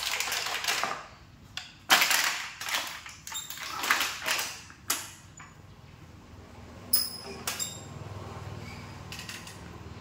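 Several bursts of rustling and handling noise, each lasting about half a second to a second, in the first five seconds, then two sharp clicks about seven seconds in.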